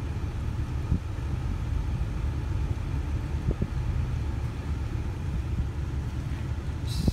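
Steady low rumble of a car, heard from inside its cabin as it moves slowly, with a brief hiss at the very end.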